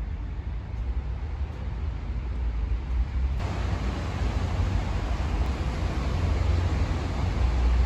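Steady low rumble with an even hiss that gets louder about three and a half seconds in.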